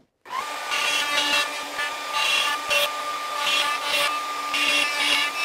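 Plunge router running with a steady high whine while its dovetail bit cuts a board in a Leigh D4R Pro dovetail jig; a gritty cutting noise swells and fades every second or so as the bit is pushed in and out between the jig's fingers. It comes on abruptly just after the start.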